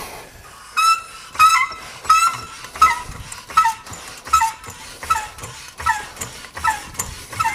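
Hydraulic floor jack being pumped by its handle, lifting a car. Each stroke brings a short squeak, some held and some falling in pitch, over a soft knock, about three strokes every two seconds.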